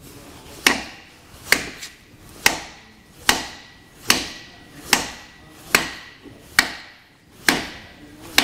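Hammer striking a block of wood held against an oil bath hub cap, driving the tight press-fit cap into a trailer's hub and rotor assembly. About ten evenly spaced blows, a little under one a second.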